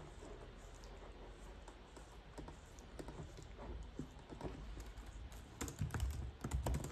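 A small dog licking and nibbling a person's hand: a scattered run of small wet clicks, with louder clicks and bumps near the end.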